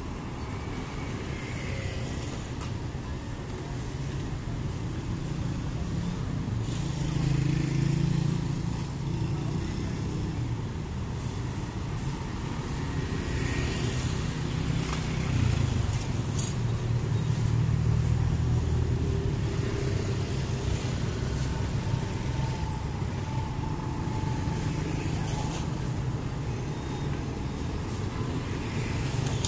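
Street traffic: motor scooters and cars passing on a paved road, their engines swelling and fading as each goes by.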